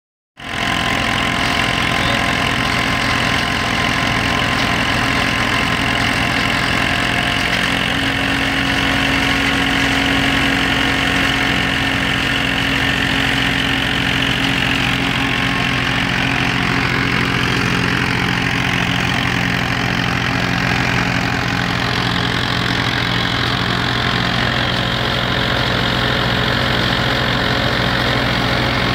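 Mahindra Arjun Ultra-1 555 DI tractor's diesel engine running steadily, driving a thresher whose drum and fan whir as straw is fed through and chaff blows out.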